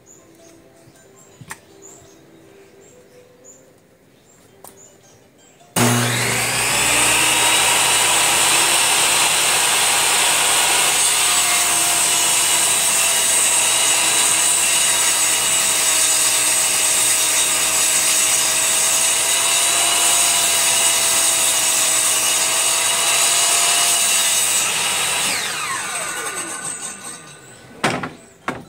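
Makita MLT100 10-inch table saw starting suddenly about six seconds in and running loud and steady while ripping a sheet of waterproof plywood. Near the end it is switched off and its whine falls as the blade spins down, followed by two sharp knocks.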